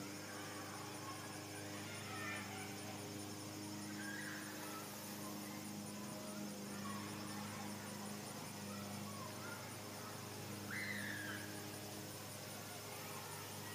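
Outdoor ambience: a low steady hum with faint bird chirps here and there, the clearest a sharp call about eleven seconds in.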